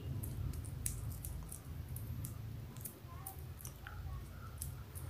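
Faint handling sounds of paper tape being pressed onto a finger: a few soft clicks and crinkles over a low steady hum.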